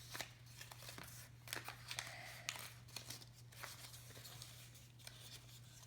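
Sheet of paper being folded and creased by hand: soft, scattered rustles and crinkles.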